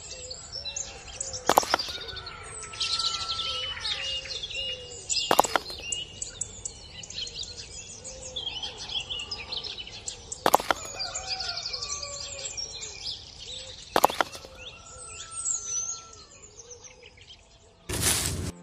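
Birds chirping and singing throughout, with four sharp knocks spread through it and a short burst of noise just before the end.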